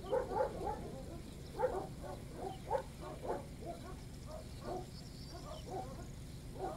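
An animal giving a rapid, irregular run of short calls, several a second, loudest in the first second and around two to three seconds in.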